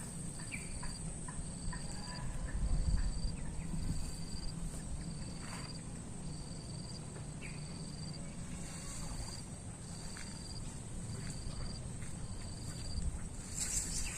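Insects chirping outdoors: a short, high chirp repeating a little more than once a second over a steady high-pitched drone. The chirping stops near the end.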